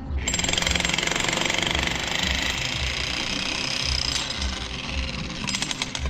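A jackhammer hammering continuously with a rapid rattle, starting just after the opening.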